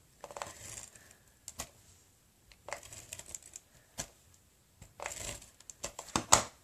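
Scattered small clicks, taps and short rustles of cardstock pieces being handled and glued down on a work table.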